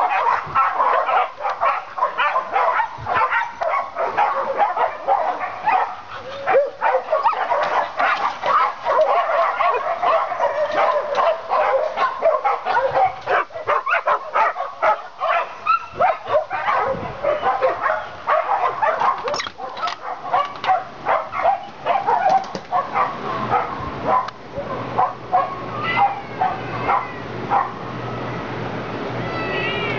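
Many dogs barking and yipping at once in a kennel, a dense overlapping chorus. It thins out in the last few seconds as a steady low hum comes in.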